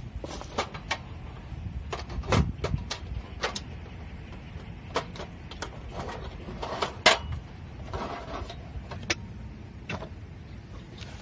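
Scattered clicks and knocks of metal camp cooking gear being handled at a cassette gas stove, as a hot sandwich maker is set and adjusted on it, with louder knocks about two and a half and seven seconds in and a little rustling.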